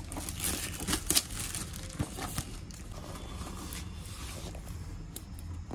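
Plastic packaging crinkling and a cardboard box being handled and its flap pulled open by hand, with irregular rustles and a few sharp clicks, busiest in the first couple of seconds.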